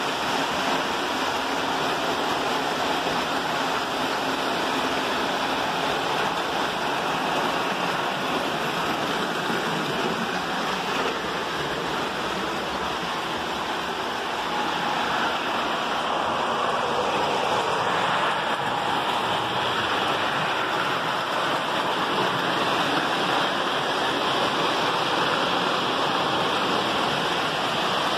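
Toy electric trains running on metal track: a steady rumble and whir of wheels and motors that does not let up.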